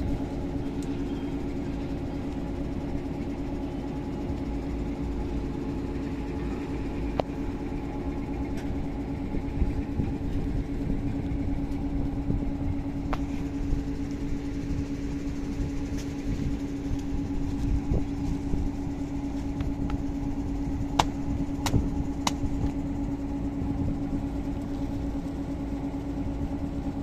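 Borewell drilling rig truck's diesel engine running steadily with a constant drone, a few short sharp clicks sounding over it, mostly in the second half.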